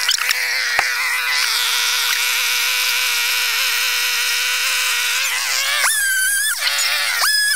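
Chainsaw engine sped up to a high pitch by fast playback: it idles steadily for about five seconds, with a sharp knock about a second in, then revs up to a high whine with quick dips as it cuts.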